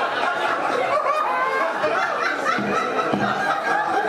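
An audience laughing together at a joke, many voices at once.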